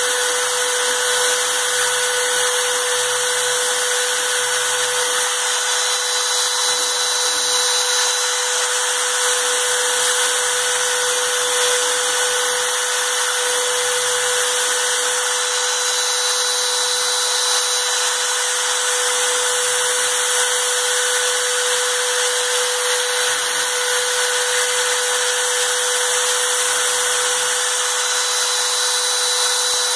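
Electric power tool running steadily at constant speed, a continuous motor whine with a fixed pitch and no pauses.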